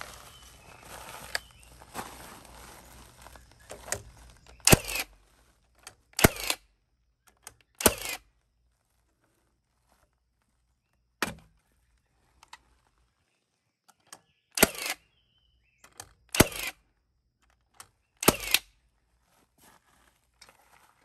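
About seven loud, sharp nailing strikes into framing lumber, each with a short ring, a second and a half to three seconds apart, with a few fainter knocks between them.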